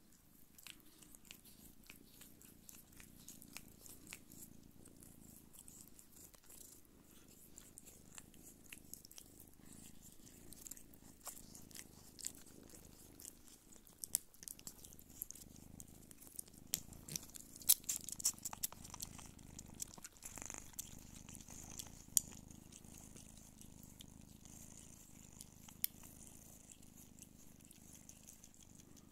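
Don Sphynx cats purring steadily and softly as kittens nurse, with scattered small clicks and smacks from the kittens suckling, thickest in the middle.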